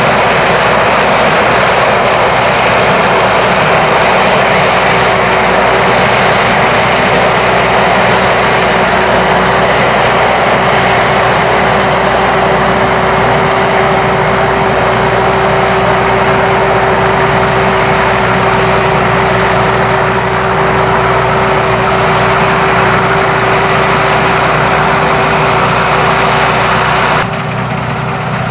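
Sakpattana SS-300 combine harvester with its five-cylinder 170 hp engine, running steadily and loudly at work. A constant hum and a high whine run through a dense mechanical din. The level drops suddenly about a second before the end.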